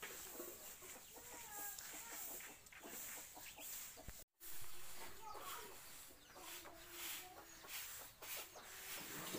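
Domestic chickens clucking on and off at a fair distance, with a brief total break in the sound about four seconds in.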